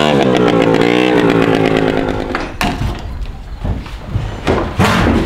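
Small moped engine running, its pitch dropping and then holding fairly steady. About two and a half seconds in it stops, and knocks and rattles follow as the moped is handled in an enclosed trailer.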